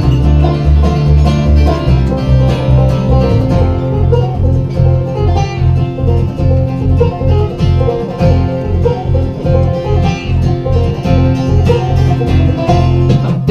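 Instrumental break of an acoustic string band: fast plucked-string picking over a steady, pulsing bass beat, with no singing.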